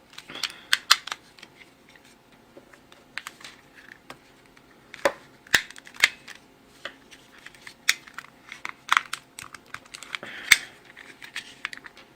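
Irregular sharp plastic clicks and taps as the two halves of a Roku remote's plastic case are handled and pressed together to snap shut.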